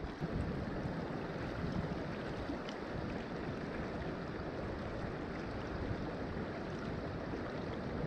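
Creek current flowing steadily, a continuous rush of running water.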